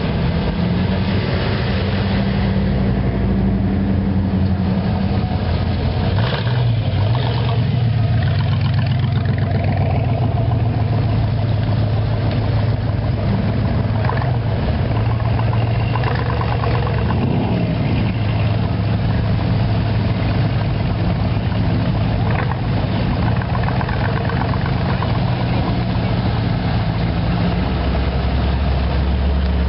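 Engines of old hot rods and classic cars running at low speed as they roll past one after another, a steady low exhaust note whose pitch shifts as each car goes by.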